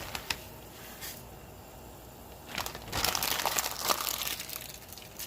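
Plastic instant-noodle packaging being handled and opened, with a few sharp clicks at first, then a couple of seconds of dense crinkling about halfway through.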